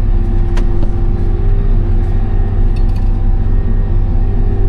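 Case IH 8120 combine's engine running steadily: a continuous low drone with a steady whine over it. A sharp click about half a second in.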